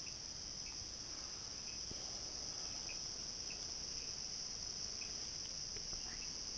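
Steady high-pitched insect trill, with faint ticks about twice a second.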